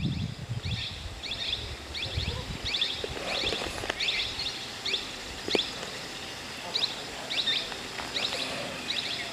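Bird calls: short, high chirps in quick little clusters, repeating about twice a second, over the steady hush of open country. A single sharp click sounds about halfway through.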